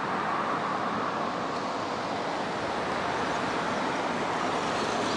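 Steady rumble of road traffic mixed with a distant KiHa 110 diesel railcar approaching, slowly growing louder.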